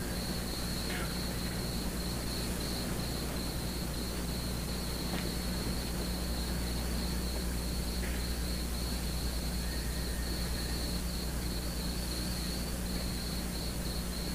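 Crickets chirping in a steady high trill, over a steady low electrical hum.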